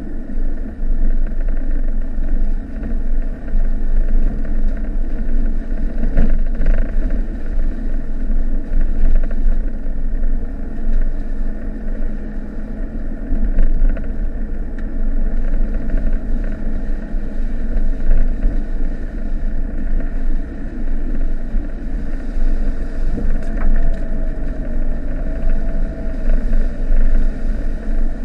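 Mitsubishi Delica 2.8 turbodiesel van running steadily on the move, heard from inside the cabin as a low drone mixed with tyre and road noise. A brief knock comes about six seconds in.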